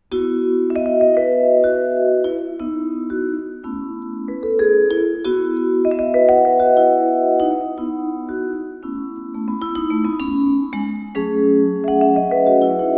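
Solo vibraphone struck with mallets, playing chords and a melody whose notes ring on and overlap; it starts from silence with a chord.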